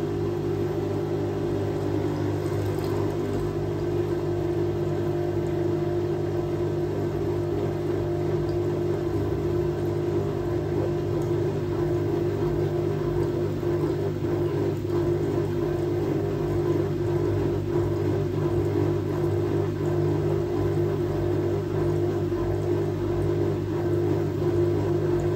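Fisher & Paykel WL8060P1 washing machine running through an Easy Iron wash cycle with a steady whirring hum that stays level throughout.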